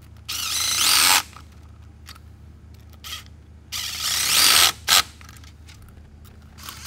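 Quarter-inch impact tightening stainless T-bolt clamps on a silicone charge-tube coupler. It runs in two bursts of about a second each, one at the start and one about four seconds in, with the pitch rising through each run, and a short extra blip just after the second.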